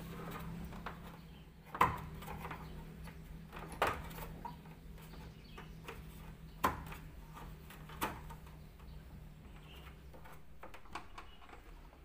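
Hard clacks and knocks as a washing machine's PCB control module and its bracket are pressed into the plastic control-panel housing and the wiring is tucked in: four sharp knocks about two seconds apart, with rustling handling between them. A low steady hum runs underneath.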